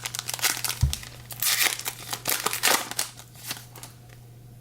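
Foil trading-card pack wrapper being torn open and crinkled by hand: a run of crackly rustles that dies down about three and a half seconds in, with a soft thump about a second in.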